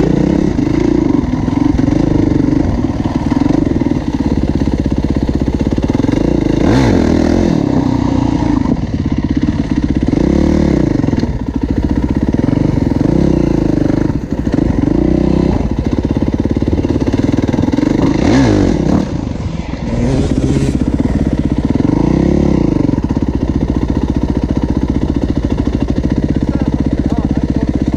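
Dirt bike engine heard from on the bike while riding, running throughout, with the revs rising and falling several times as the throttle is opened and closed.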